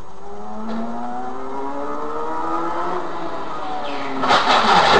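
Car engine accelerating, its pitch climbing for about three seconds and then dropping back. A sudden loud, rough noise breaks in about four seconds in.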